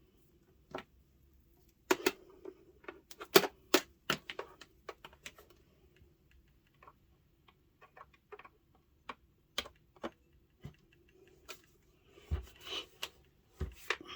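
Irregular sharp clicks and taps of packaging and parts being handled during an unboxing, densest early on, with a short rustle and two low thumps near the end.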